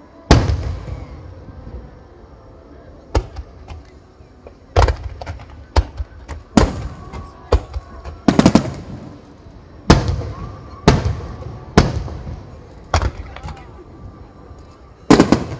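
Aerial firework shells bursting high overhead, about a dozen loud booms at irregular intervals, each trailing off in a rumbling echo.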